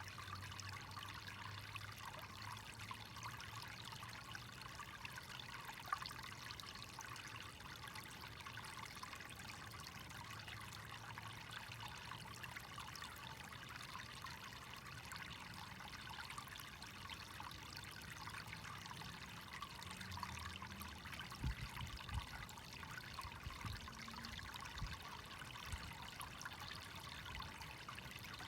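Water running in a steady, faint trickle, with a few soft low knocks in the last third.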